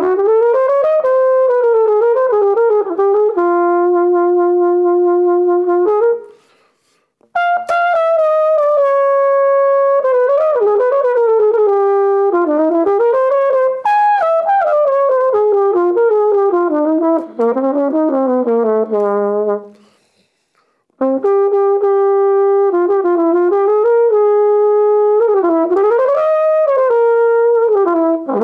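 Solo flugelhorn playing a slow jazz ballad melody unaccompanied, in three long phrases with brief breaks a little after six seconds and around twenty seconds. Long held notes alternate with slurred runs where the pitch bends up and down.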